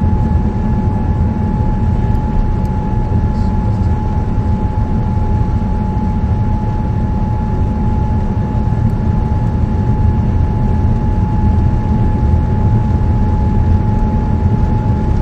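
Steady cabin noise inside a Boeing 787-9 in flight after a go-around: a deep rumble of airflow and Rolls-Royce Trent 1000 engines, with a steady whine above it.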